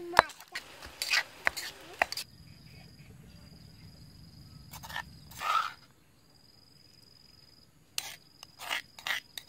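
Stone mortar and pestle with a metal spoon: sharp knocks and clicks of the pestle and spoon on the stone as chili paste is scraped out, in scattered bursts with quieter gaps, a longer scrape about five and a half seconds in, and a quick run of clicks near the end.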